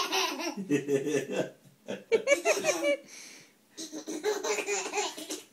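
Baby laughing in bursts of belly laughs, ticklish laughter at a cat licking its toes, with a short pause about three seconds in.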